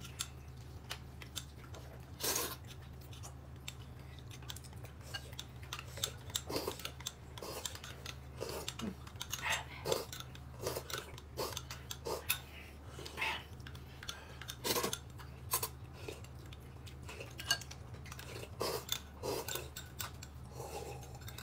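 Cutlery and dishes clinking and scraping at the table during a meal: many short, scattered clicks, over a low steady hum.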